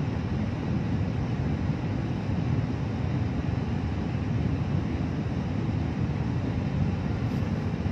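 Steady low rumble of engine and road noise inside a van's cabin.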